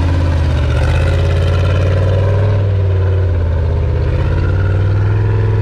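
Off-road 4x4's engine running under load as it works an obstacle, the revs rising a little about a second in and easing off again after about three seconds.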